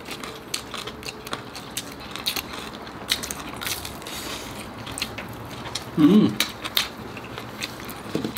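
Close-up chewing of crispy air-fried lechon kawali: irregular sharp crunches and crackles of the pork skin. There is a short voiced hum about six seconds in.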